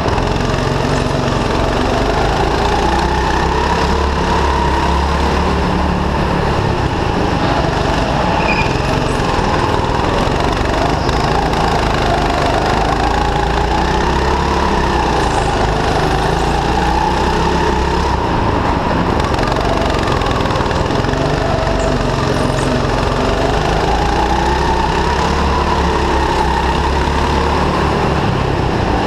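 Go-kart's small petrol engine running hard under the driver, its pitch climbing and dropping again and again as the kart speeds up and slows down around the track.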